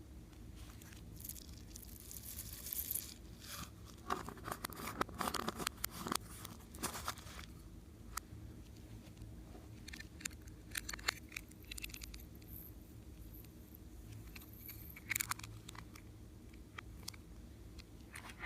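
Hands working slime: irregular clusters of small sticky crackles and pops, the busiest stretch a few seconds in, over a faint steady low hum.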